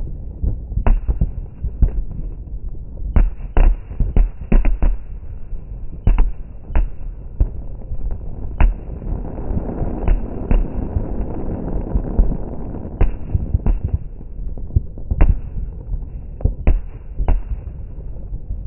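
Aerial fireworks exploding: many sharp bangs at irregular intervals, some loud and close, others fainter, over a continuous rumble of more distant fireworks that swells in the middle.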